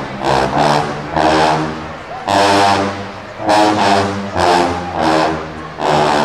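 A sousaphone section playing together in loud, punchy phrases of held low notes, about one blast a second.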